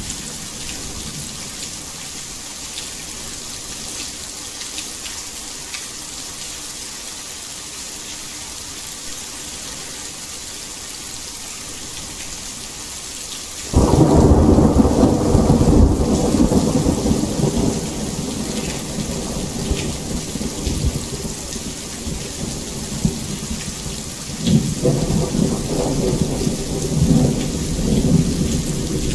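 Steady heavy rain hiss. About halfway through, thunder breaks in suddenly and rumbles loudly, easing over the next few seconds, then rumbles again near the end.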